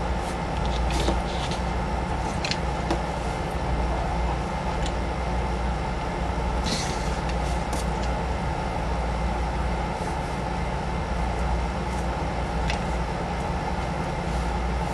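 Loose plastic pieces of a disassembled 3x3 puzzle cube clicking now and then as they are handled and fitted, about seven light clicks over a steady low background hum.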